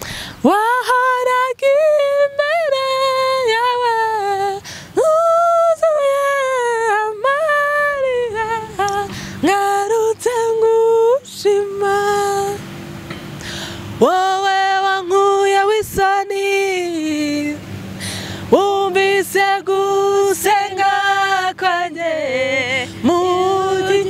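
A woman singing a gospel praise song in long held notes that slide between pitches, with short breaks between phrases.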